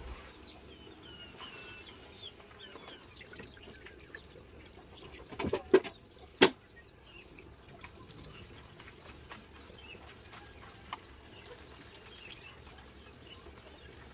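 Cooked glutinous rice being washed by hand in water, with birds chirping throughout. About halfway through there are two sharp knocks, a little under a second apart, which are the loudest sounds.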